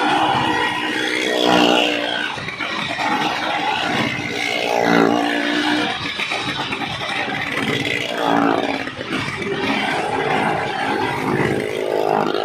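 Vehicle engines revving as they circle the wall of a well-of-death (maut ka kuan) stunt drum, the pitch rising and falling again and again.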